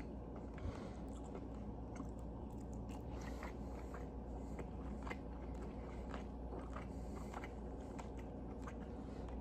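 A person chewing a bite of cooked mahi-mahi: faint, irregular mouth clicks and smacks, over a steady low hum.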